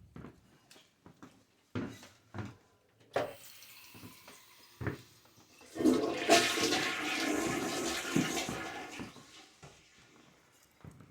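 A few knocks, then a toilet flushing about six seconds in, its rush of water fading out over a few seconds. The house's water system is being drained down with the main supply shut off.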